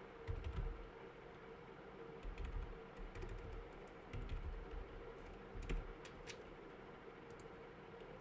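Typing on a computer keyboard: scattered clusters of key clicks with pauses between them.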